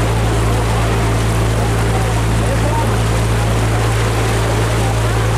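A boat's diesel engine running at a steady low drone, with the rush of water and wind over it.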